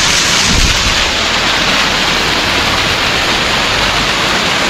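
Waterfall's falling water, a loud, steady rushing noise.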